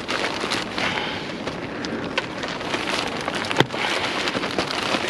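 A heavy plastic trash bag being pulled at and torn open by hand, crackling and crinkling with many small snaps and one sharp snap about three and a half seconds in.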